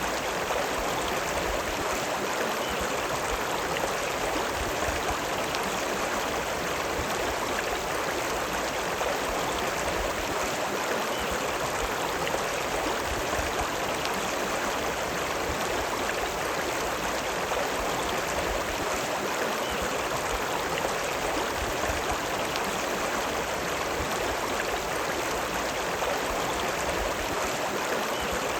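The River Lune running: a steady, unbroken rush of flowing river water.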